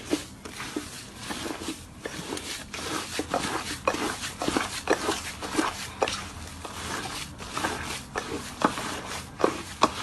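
Slime being squeezed and worked by hand, giving a quick, irregular run of small wet clicks and pops.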